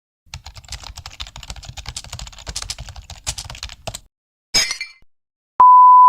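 Typing on a computer keyboard: rapid, irregular key clicks for about four seconds. Then comes a short hissing burst, and near the end a loud, steady, high beep starts.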